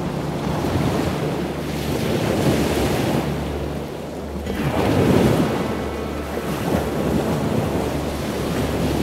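Ocean surf breaking and washing over a rock platform in slow surges, with gusty wind noise. A low steady drone sits underneath.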